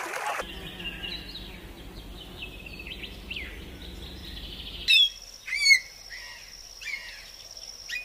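Songbirds chirping and calling in short, quick notes that glide up and down. About five seconds in, the sound changes to louder, sharper calls over a thin, steady high tone. The tail of a rapid run of duck quacks cuts off at the very start.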